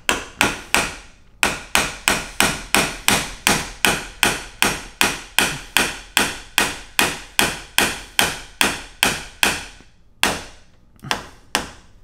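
Claw hammer striking a Ryobi door-latch mortising tool about three times a second, driving its rounded chisel into the wooden door edge to cut the outline of the latch-plate recess. The sharp blows break briefly about a second in, run on steadily, then end with a few spaced strikes.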